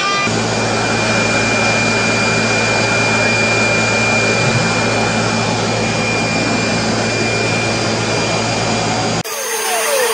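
CNC milling machine running: a loud, steady rushing noise with a low hum and a thin high whine. About nine seconds in it changes abruptly to a sound with short whines gliding up and down in pitch.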